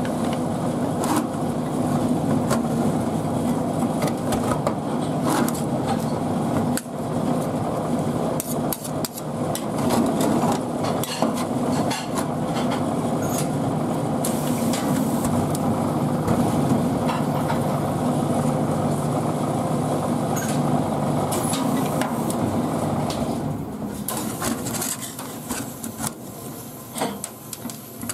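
Metal spatula scraping and tapping on a chilled steel cold-plate pan as frozen cream is chopped and scooped, with many short sharp clicks, over a steady low hum that fades near the end.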